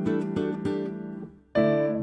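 Background instrumental music: a few quick struck notes over a held chord that fades away, then a new chord struck about one and a half seconds in.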